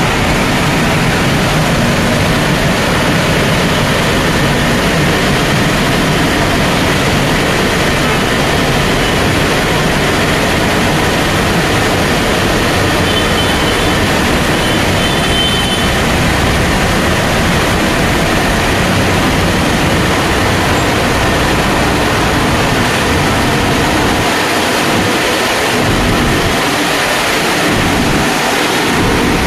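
Rollover automatic car-wash machine running over a car: a loud, steady rushing noise, its low rumble dropping away in patches near the end.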